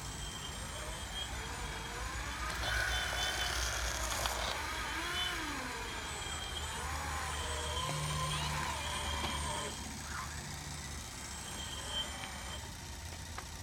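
Radio-controlled hydraulic model excavator working: its hydraulic pump whines, rising and falling in pitch as the arm and bucket move under load, over a steady low hum.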